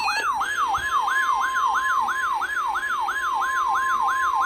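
NOAA Weather Radio alert for a severe thunderstorm warning: a siren wails about four times a second throughout. Over it, the stepped tones of the SAME header data end just after the start, and the steady 1050 Hz warning alarm tone comes in about half a second in.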